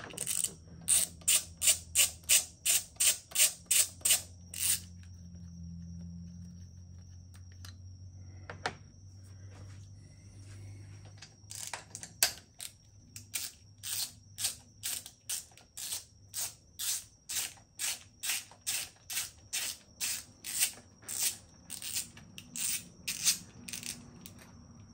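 Hand ratchet wrench clicking while it backs out the bolts of the M157 engine's camshaft position sensors. There is a quick run of clicks at first, a pause with a single knock, then a slower, steady run of clicks from about halfway to near the end.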